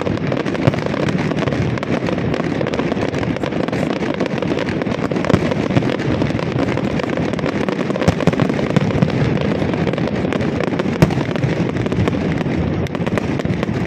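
Aerial fireworks display: a dense, continuous crackling of bursting shells and crackling glitter, with a few louder bangs standing out, the sharpest about a second in and about eleven seconds in.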